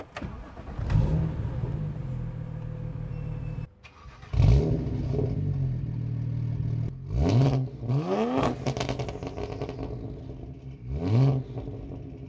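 BMW 1M Coupe's N54 3-litre twin-turbo straight-six starting up and settling to idle, heard at the exhaust. The revs flare as it catches, twice. Then come three quick throttle blips midway and one more near the end, each rising and falling back to idle.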